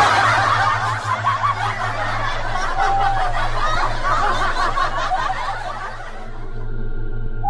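Several people laughing at once, many voices overlapping in a dense tangle that thins out about six seconds in, over a steady low hum.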